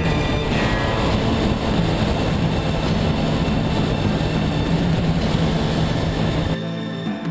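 Supercharged 2010 Ford Mustang GT's 4.6 L V8 with SLP Loudmouth exhaust pipes, running steadily at speed with a dense rush of road noise. It cuts off about a second before the end.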